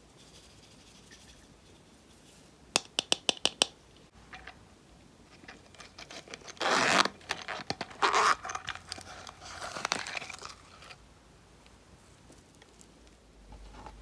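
A quick run of about seven sharp clicks from a clear plastic glitter container being handled, then several seconds of rustling and rasping zipper sound as a small zippered tin coin purse is opened and handled.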